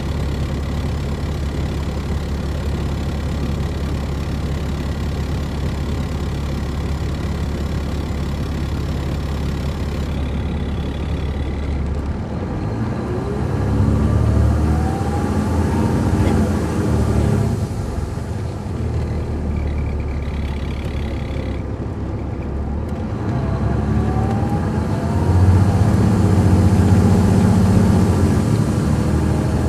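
Caterpillar C13 diesel engine of an MCI D4500CL coach heard on board, idling steadily for about twelve seconds. The bus then pulls away, the engine getting louder with a rising whine. The revs ease off briefly and climb again near the end.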